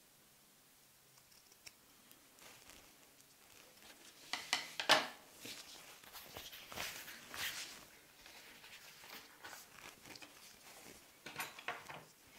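Scissors and pieces of suede and leather handled on a wooden tabletop: soft rustling with scattered clicks, the sharpest click about five seconds in and another cluster of clicks near the end.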